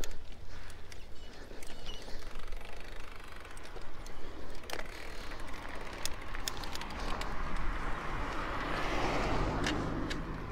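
Mountain bike rolling over rough ground, with scattered clicks and rattles. A rushing tyre noise grows louder from about seven seconds in. Wind rumbles on the microphone.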